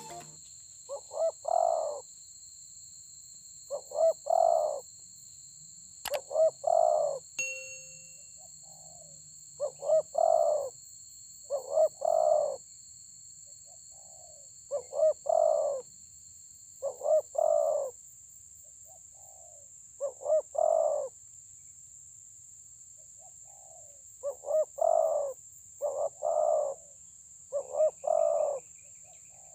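Spotted dove cooing: a phrase of two short notes and a longer one, repeated every two to three seconds, with some phrases fainter than others.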